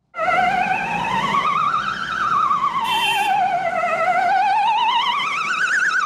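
Brussels ambulance siren: a warbling tone that sweeps slowly up for about two seconds, falls for about two, and rises again near the end. Traffic noise runs underneath, with a brief hiss about three seconds in.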